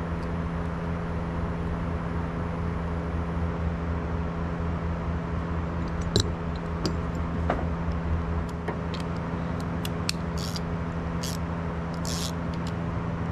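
A steady low mechanical hum, with light metal clicks and taps on top, the sharpest about six seconds in. The clicks are small Torx bolts being fitted and turned in by hand to hold the armature plate on a 7.3 diesel injector.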